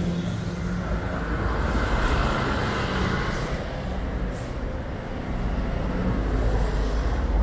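Street traffic on wet roads: vehicles passing with a steady low rumble and the hiss of tyres on wet tarmac, with a brief sharp hiss about four and a half seconds in.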